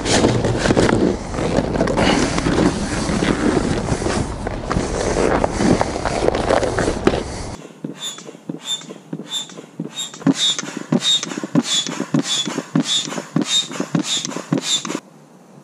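Heavy fabric and a carry bag rustling close to the microphone as an inflatable PVC kayak is pulled out. About halfway through, this gives way to a foot pump inflating the kayak through a hose: steady strokes about two a second, each with a short high squeak of air, stopping just before the end.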